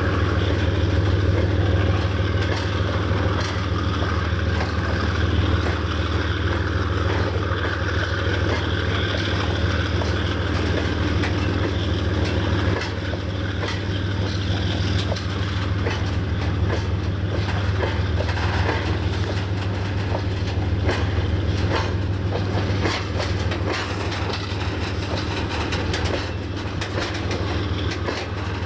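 Work train of flat wagons loaded with track panels rolling slowly past, its wheels clicking over rail joints. A steady low diesel drone runs underneath.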